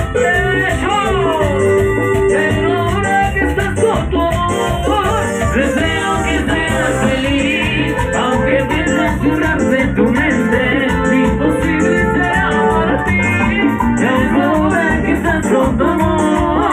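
Loud Latin dance music from a live band played through a PA system, with a steady beat and singing.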